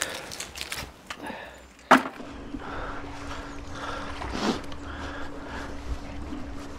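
Neodymium fishing magnet and its metal catch scraping and knocking against a stone bridge wall as they are hauled up on a rope, with one sharp click about two seconds in.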